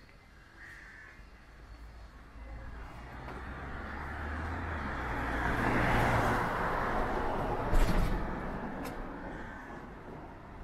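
A motor vehicle passing by: engine rumble and tyre noise build up, peak and fade away. A short knock about eight seconds in, as it goes past.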